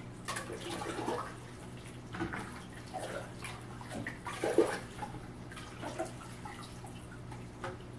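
Water sloshing and splashing in a bucket as a plastic Fluval G3 canister filter part is swished around and rinsed in it. The splashes come irregularly, with the biggest slosh about four and a half seconds in.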